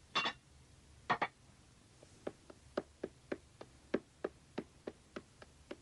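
Footsteps on a wooden plank floor, about three steps a second, coming in after two louder knocks in the first second or so.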